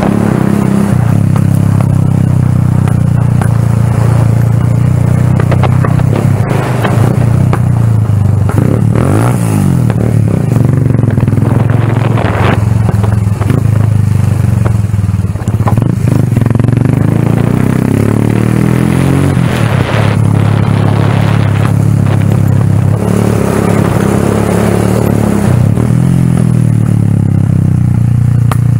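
Small motorcycle engine running while riding, its pitch rising and falling several times as the revs change, with some clatter and knocks from the bike over a rough, patched road.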